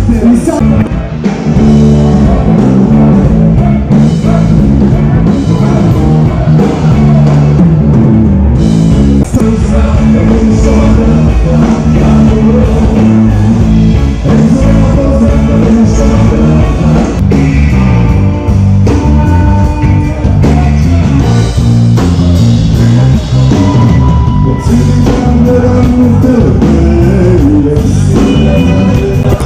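Live rock band playing loudly, with a singer, keyboards and a drum kit.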